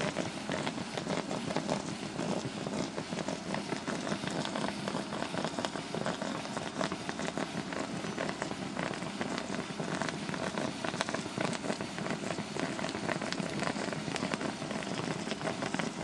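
Distilled water boiling hard inside a small electrically heated steam cell running at about 800 watts: a steady, dense crackle of bursting bubbles with steam rushing out.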